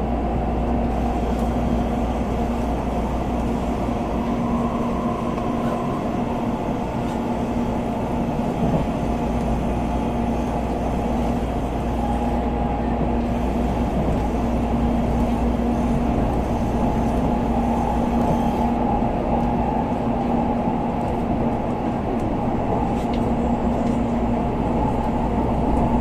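Tokaido Shinkansen bullet train running at speed, heard inside the passenger cabin: a steady, unchanging rumble with two constant hums through it.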